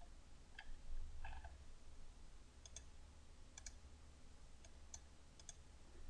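Faint, scattered computer mouse clicks, about eight over a few seconds, over a steady low hum.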